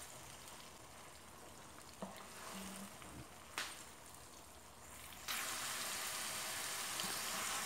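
Garlic-ginger paste and chopped green chillies sizzling as they fry in ghee in a nonstick pot, stirred with a slotted spatula, with a couple of light knocks. The sizzle grows louder about five seconds in.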